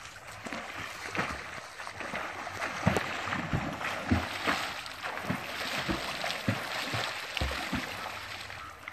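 Water splashing from a swimmer's front-crawl arm strokes and kicking, with repeated slaps and splashes about one and a half a second.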